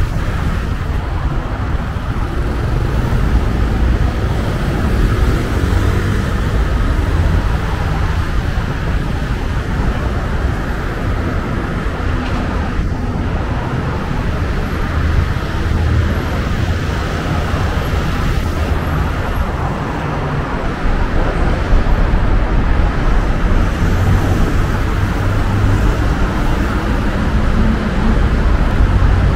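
Steady road traffic noise from a busy multi-lane city road: cars and taxis passing close by, a continuous rumble with no single vehicle standing out.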